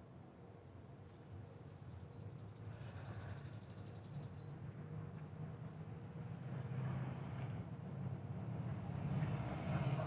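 A bird singing a fast high trill of rapidly repeated notes for about three seconds, over a low rumble of vehicle noise that grows louder, loudest near the end.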